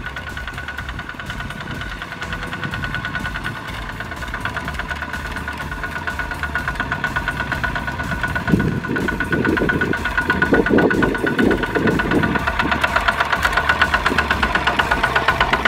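Single-cylinder diesel engines of two-wheel walking tractors chugging with a rapid, even knock as they pull loaded rice trailers, growing louder as one comes close. Some lower rumbling comes in about halfway through.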